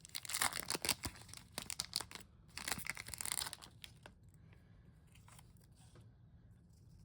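A Pokémon booster pack's foil wrapper being torn open and crinkled, with sharp crackles for about four seconds before it dies down.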